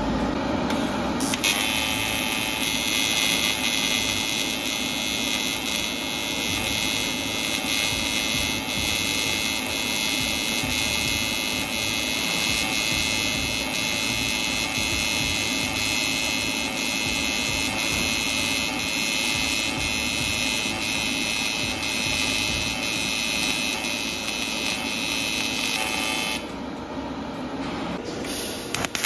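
Pulsed square-wave AC TIG welding arc from a TIG-200ADP inverter welder in 2T pulse mode, a steady high buzz with a regular pulsing beat. It stops about 26 seconds in and the arc starts again near the end.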